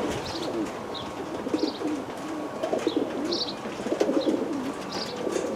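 Racing pigeons cooing, many low overlapping coos running on, with short high chirps recurring about every half second.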